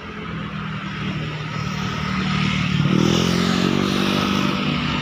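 Heavy-equipment engine rising in pitch and getting louder about two and a half seconds in, then running high and easing off slightly near the end.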